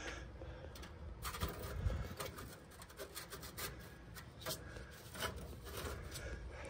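Stainless steel heat-plate tray loaded with ceramic briquettes being set and shifted into place in a gas grill's firebox: scattered quiet clicks and knocks with metal scraping against metal.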